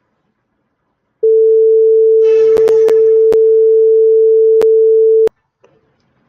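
PICSimLab's simulated buzzer sounding one steady, loud, mid-pitched tone for about four seconds, then cutting off suddenly: the door-open alarm of the washing-machine program while the RB0 button is held. A few sharp clicks land on the tone.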